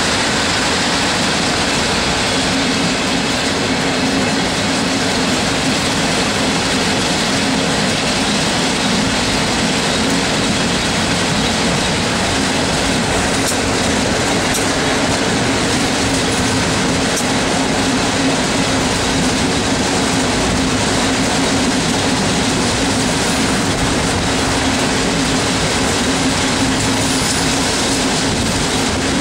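Passenger train coaches rolling steadily on the rails, a continuous rumble and rush of noise heard at an open coach window. A few faint clicks come about halfway through.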